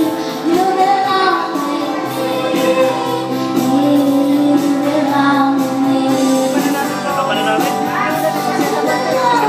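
A young girl singing a pop song live into a microphone, accompanied by an electronic Yamaha keyboard playing sustained chords.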